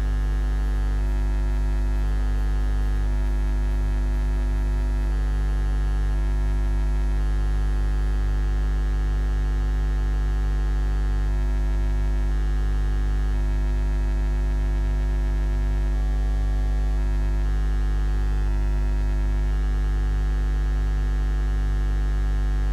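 Steady electrical mains hum on the audio feed: a low, unchanging buzz with many overtones.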